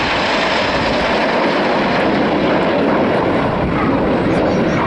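Steady rushing jet noise from a formation of BAE Hawk T1 jets, each with a single Adour turbofan, flying overhead.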